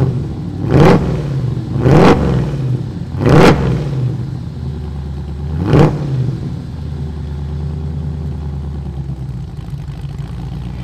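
1971 Chevrolet C10's 350 cubic-inch small-block V8 revved in several quick blips, each rising and falling away, over the first six seconds, then idling steadily.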